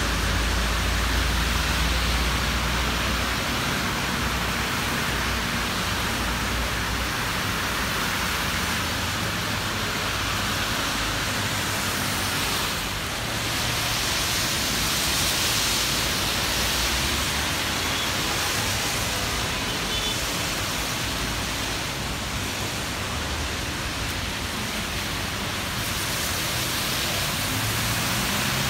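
Steady hiss of rain and car tyres on wet asphalt, with a vehicle's low engine rumble in the first few seconds.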